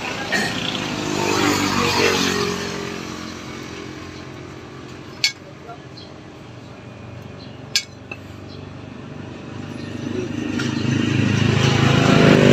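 Passing motor vehicle engines, one fading away over the first few seconds and another growing steadily louder near the end. In between come two sharp metal clinks about two and a half seconds apart.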